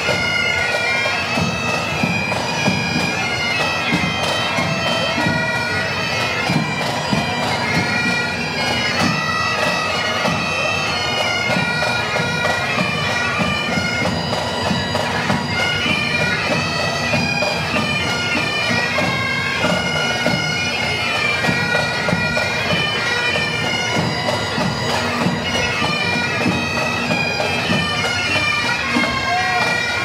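A pipe band playing: several Great Highland bagpipes play a tune over their steady drones, with drums beating underneath.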